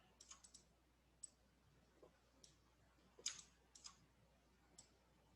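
Faint, scattered clicks of a computer mouse and keyboard being operated, about a dozen short clicks spread irregularly, a few in quick clusters.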